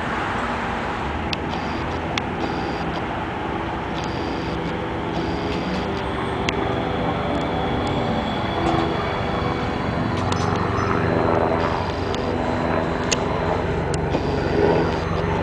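Hudson-Bergen Light Rail car, a Kinki Sharyo light rail vehicle, running with a steady mechanical hum of several held tones and scattered light clicks, getting a little louder toward the end.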